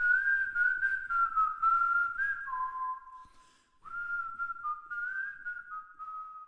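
A person whistling a short melody unaccompanied, in stepped and gliding notes, with a brief pause about three seconds in before the whistling resumes.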